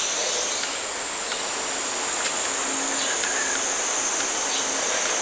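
Steady high-pitched insect chorus over an even outdoor hiss, unbroken throughout.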